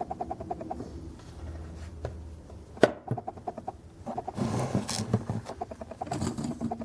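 Handling of a diecast scale model: a fast, even run of small clicks like a ratcheting gear, a sharp knock about three seconds in, a second short run of clicks, then rustling.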